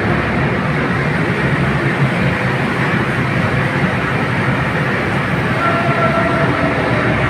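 Ventilation fan blower running: a loud, steady rush of air and motor rumble, with a faint whine coming in briefly near the end.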